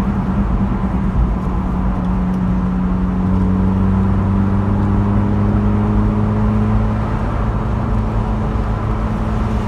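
An old retro Vauxhall's engine heard from inside the cabin, running steadily at cruise with a low growl. Tyre noise from the wet road runs under it.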